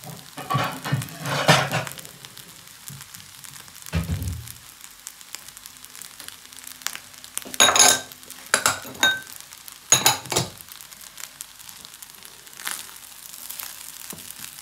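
Rice with vegetables and shrimp sizzling in a frying pan while a plastic spatula stirs and scrapes through it: a steady sizzle with several loud scrapes and a dull knock about four seconds in.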